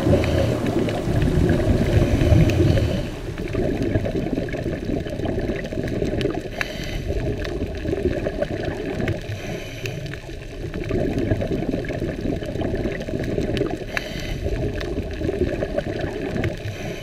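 Muffled underwater sound through a camera housing: bubbling and gurgling from a scuba diver's exhaled bubbles, swelling and fading every few seconds, with a few faint clicks.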